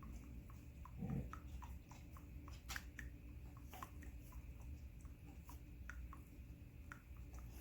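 Black+Decker CM618 single-serve coffee maker brewing: faint, irregular small ticks and pops of water dripping and sputtering through, over a low steady hum, with one soft thump about a second in.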